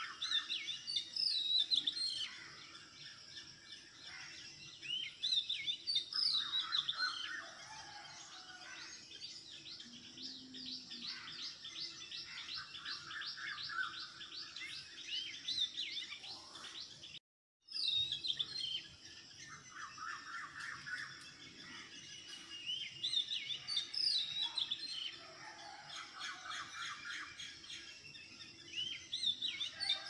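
Several birds chirping and singing, many short quick calls overlapping. A sudden brief gap of silence comes a little past halfway.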